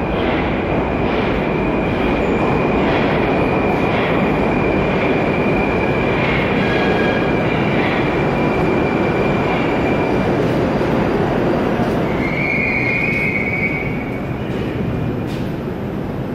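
Moscow Metro train running past along the station platform, a steady rumble of wheels and running gear with a thin high whine. A short wheel squeal comes about three-quarters of the way through.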